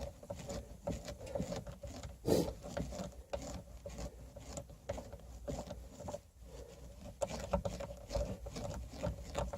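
Faint scattered clicks and light scrapes of a Torx screwdriver and hands working the speaker screws on a car's rear parcel shelf, with one sharper click a little over two seconds in.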